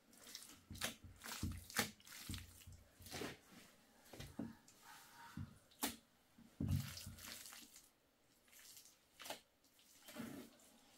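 Wet mud squelching and slapping as handfuls are pressed into place, with irregular soft knocks as blocks are set down around the base of a clay stove.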